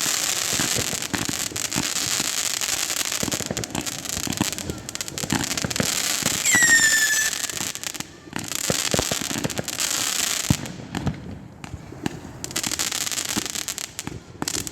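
Fireworks crackling and popping in a dense, continuous barrage. About halfway through, a whistling firework gives one short falling whistle.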